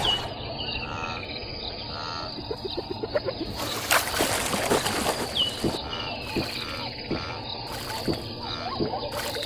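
Savanna ambience of bird chirps and insects. About four seconds in comes a sharp burst of rustling as an elephant tears up grass with its trunk, followed by a run of irregular soft crunching as it chews.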